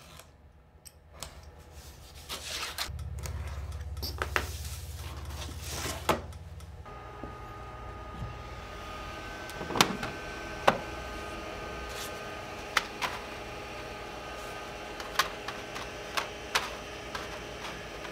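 Veneer handling in a woodworking shop: a knife scoring veneer along a steel rule, then a steady machine hum with a faint whine. Over the hum come sharp clicks and taps as veneer pieces are set onto the laser cutter's metal honeycomb crumb tray.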